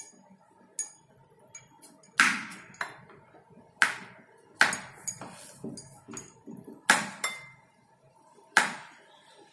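Kitchen knife slicing button mushrooms on a wooden cutting board: irregular sharp knocks as the blade strikes the board, about seven loud strokes.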